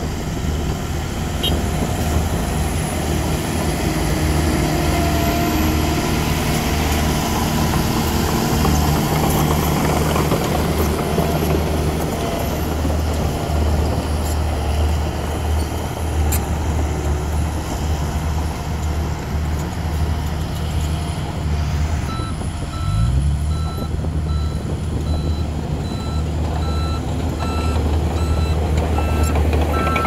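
Diesel engines of heavy earthmoving machines running steadily: a Komatsu D31P crawler dozer working close by and a Bomag BW211D-40 road roller, with one engine briefly revving up partway through. About two-thirds of the way in, a reversing alarm starts beeping about once a second.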